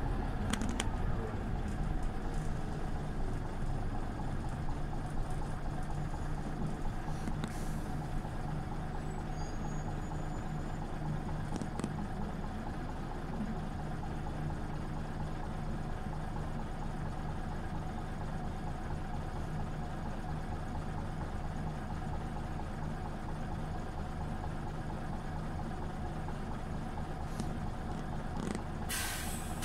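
Scania OmniLink CL94UB city bus with its engine running, a steady low hum that does not change pitch. A few faint clicks come through, and a brief hiss near the end.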